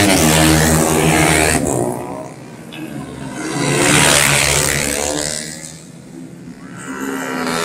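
Small underbone road-race motorcycles passing at full throttle, the high-revving engine note swelling and fading as they go by. It dies away about two seconds in, swells again to a peak about four seconds in, dips, then rises once more near the end as another bike approaches.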